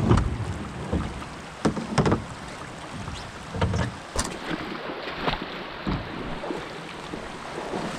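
A canoe being paddled through a shallow, rocky riffle: irregular knocks and splashes from the paddle and hull, about eight in all, over a steady rush of moving water.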